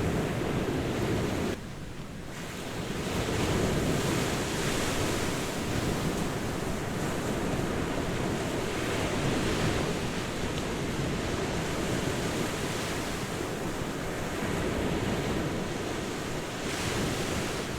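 Ocean surf washing continuously onto a beach, with wind noise on the microphone. The level drops suddenly about one and a half seconds in, then swells back up.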